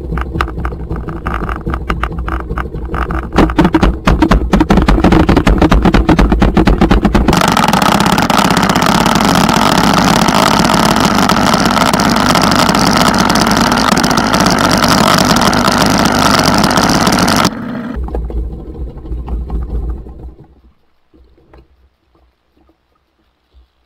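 Tohatsu outboard motor running under way, with rushing wind and water noise. The noise jumps abruptly to a much louder steady rush about seven seconds in, cuts back about ten seconds later, and falls away almost to nothing near the end.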